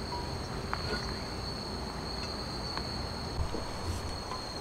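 Crickets singing in a steady, continuous high trill, with a few faint taps.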